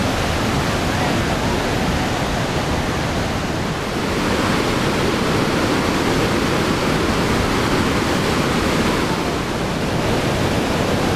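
Niagara Falls: the steady, unbroken rush of a huge volume of water pouring over the falls.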